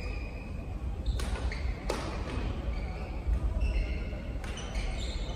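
Badminton rally in a sports hall: three sharp racket strikes on the shuttlecock, about a second and then two and a half seconds apart, with short high squeaks of shoes on the court floor over a steady low hall rumble.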